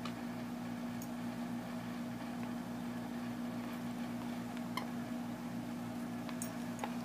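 A dog quietly gnawing and nosing into a torn plush squeaky toy, giving only a few faint ticks, over a steady low hum.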